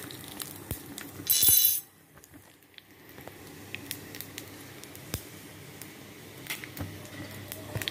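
Cumin seeds frying in hot mustard oil in a small kadai, sizzling steadily with scattered crackles and a brief loud hiss about a second and a half in.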